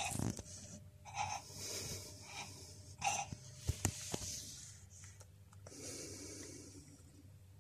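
An injured black-and-white cat breathing noisily, in short rough breaths about a second apart. Two sharp clicks come just under four seconds in.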